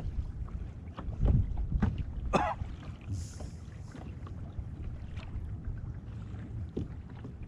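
Wind buffeting the microphone over small waves lapping against a Hobie Compass kayak's hull, with a few light knocks and splashes, the clearest about two and a half seconds in.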